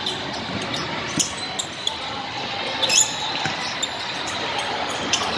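Sounds of a basketball game in a large hall: the ball bouncing and sneakers squeaking on the hardwood court over steady, echoing crowd chatter, with the loudest knock about three seconds in.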